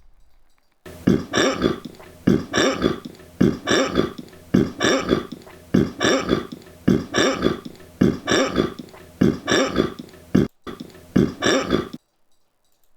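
A man burping over and over in a steady rhythm, about two burps a second, for roughly eleven seconds, with one brief break near the end.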